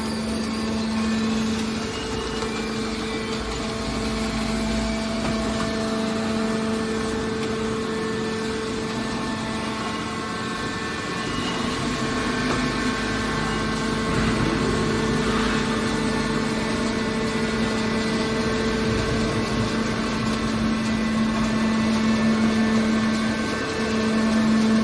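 A machine running with a steady hum.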